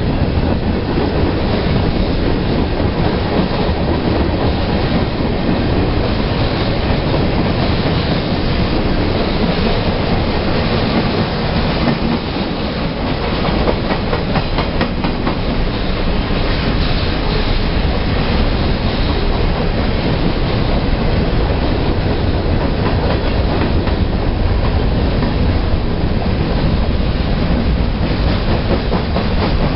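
Freight train cars rolling past, loud and steady, with the clatter of steel wheels over the rail joints.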